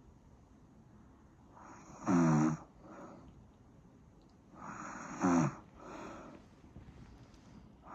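Snoring in a steady rhythm: two loud, short snores about three seconds apart, each followed by a softer breath out.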